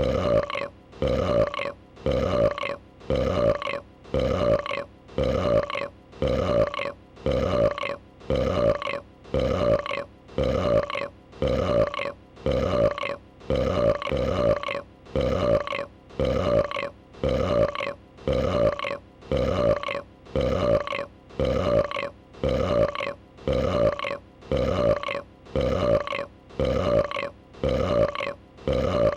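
A female dragon's burp, a creature sound effect, looped and repeating identically about once a second; each burp starts sharply and fades before the next.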